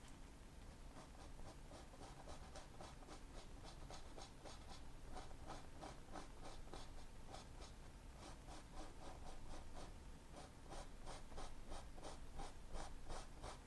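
Bristle fan brush scrubbing oil paint onto a canvas to lay in a dark shadow: faint, quick, rhythmic strokes, several a second, starting about a second in.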